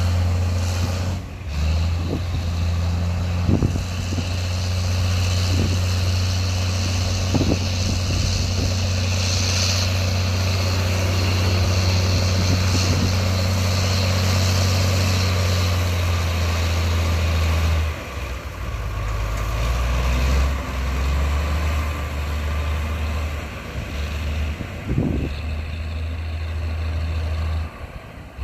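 Heavy diesel construction machinery running with a steady low engine drone. About two-thirds of the way through, the engine note drops and changes character, and a few short knocks sound along the way.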